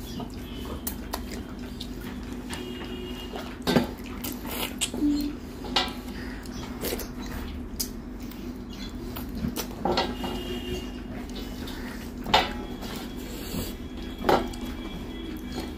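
Stainless steel plate clinking and scraping as rice and curry are gathered and eaten by hand, with a few sharp clinks, the loudest about 4, 12 and 14 seconds in. A steady low hum runs underneath.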